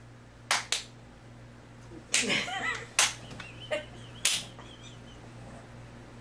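Sharp hand claps and palm-to-palm slaps of a patty-cake clapping game, a few irregularly spaced strikes: a quick pair near the start and single ones about three and four seconds in. A short burst of voice, like a laugh, comes between them.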